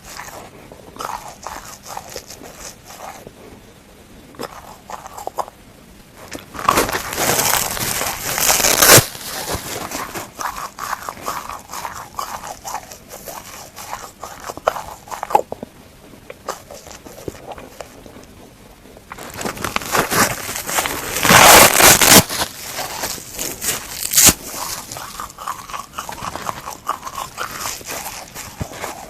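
Dry plastic sponge being bitten and chewed: a steady run of small crackles and crunches, with two longer, louder stretches of dense crunching, about a quarter of the way in and again about two-thirds through.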